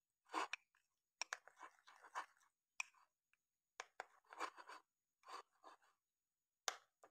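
Faint metal spoon scraping and clicking against a ceramic mug in short, irregular strokes, stirring cocoa powder into thick cake batter.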